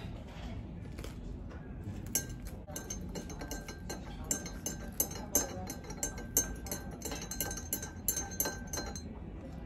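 A metal fork stirring tea in a glass mug, clinking against the glass over and over. The clinks start about two seconds in, each ringing briefly.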